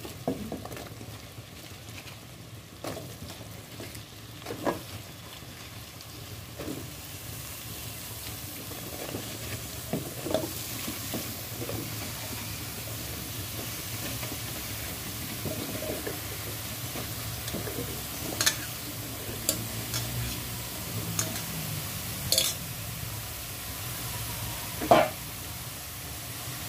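Cut elephant ear (taro) stems frying in a pan of hot oil and spice paste as handfuls are dropped in, the sizzle growing louder and steadier after the first several seconds. Scattered short knocks of pieces and utensils against the pan, the sharpest near the end.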